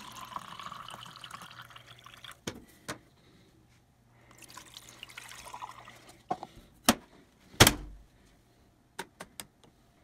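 Liquid bleach poured from a plastic jug into a plastic cup for about two and a half seconds, then poured again into the washing machine's detergent dispenser drawer from about four to six seconds in. A few clicks follow, with a loud knock just before eight seconds in.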